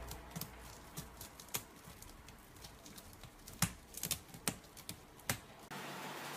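A cat working at a woven wicker basket bed with its mouth or claws, giving irregular dry crackling clicks a few times a second. Near the end it gives way to a steady hiss.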